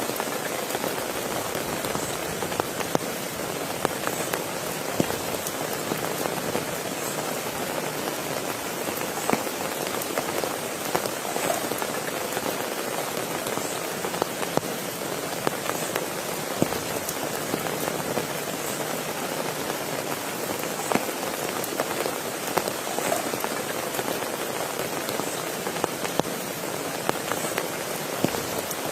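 Steady rain falling, with many sharp single drops hitting a surface close by.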